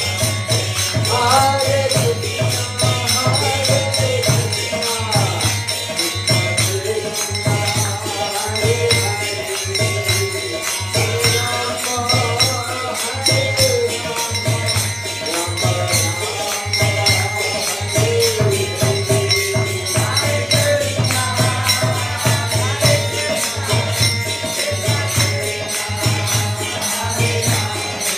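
Devotional kirtan: a voice chanting a slow melody over a fast, even jingling beat of hand percussion, with a low steady hum underneath.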